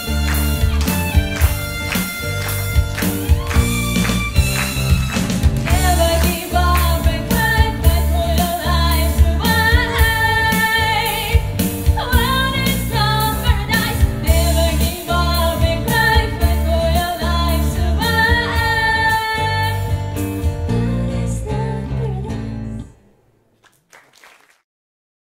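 A woman singing over instrumental accompaniment with a steady beat and a low bass line; the voice comes in about six seconds in. The music stops abruptly near the end.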